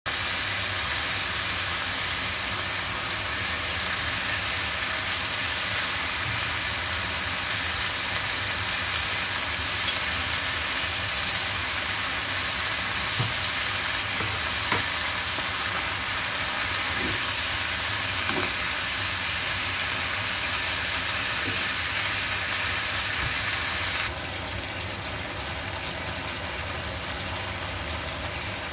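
Pork ribs frying in oil in a pan, a steady loud sizzle with a few light knocks of a spoon against the pan. About 24 seconds in, the sizzle suddenly drops to a quieter, duller level.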